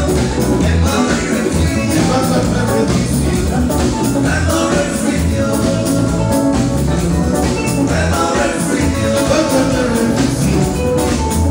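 Live Ghanaian highlife band playing loud, with a heavy bass line, keyboards and melodic lines over a steady beat.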